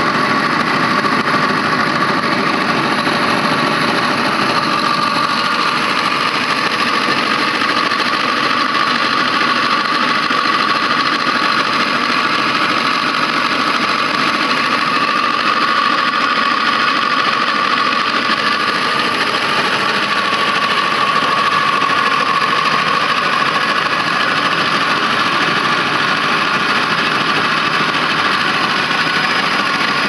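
LG three-phase washing machine motor, fed by a variable-frequency drive, running steadily at speed as it drives a bank of small generators. It makes a continuous mechanical whirr with a steady high whine.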